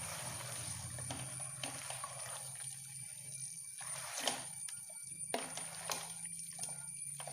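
Chicken pieces sizzling in hot oil and masala in a pan as they are stirred, with the spoon knocking against the pan a few times.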